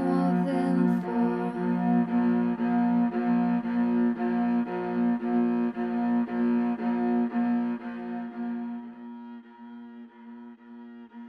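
Electronically rearranged violin music: a repeating loop of short, pulsing bowed strokes over held notes. The lower notes drop out about nine seconds in and the music fades quieter toward the end.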